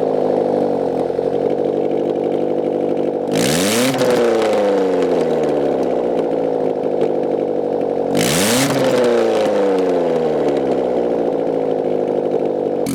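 1993 Saturn SW2's 1.9-litre four-cylinder engine running with no exhaust manifold, straight out of the open exhaust ports. It runs at a steady raised idle and is blipped twice, about three and a half and eight and a half seconds in, the pitch shooting up and dropping straight back each time.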